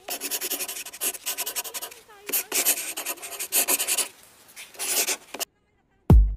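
Pen-on-paper scribbling sound effect in quick stop-start strokes, laid under an animated handwritten logo. Near the end a deep bass hit comes in as music starts.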